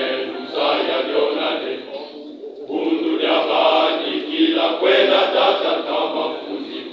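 Choir of men and boys singing together in full voice, with a brief break between phrases about two seconds in.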